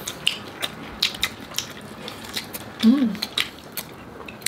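Close-miked crunching and chewing of crispy air-fried lechon kawali (pork belly with crackling skin), a run of irregular sharp crunches, with a short hummed "mm" about three seconds in.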